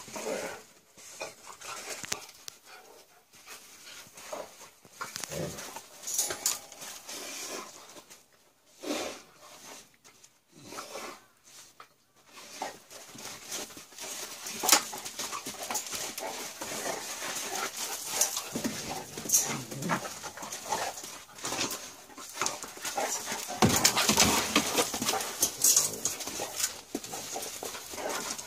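A Dogo Argentino and a Patterdale terrier wrestling on loose dirt: irregular scuffling and short dog noises. The sounds are sparse with quiet gaps at first, get busier from about halfway, and are loudest a little past three quarters of the way through.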